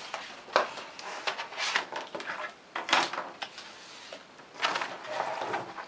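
Objects being handled on a tabletop: a series of light knocks and scrapes, the sharpest about half a second in and again about three seconds in.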